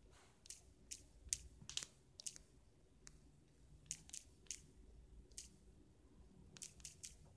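Faint, sharp clicks of digits being tapped on a smartphone's touchscreen keyboard. They come in quick runs of a few taps with short pauses between.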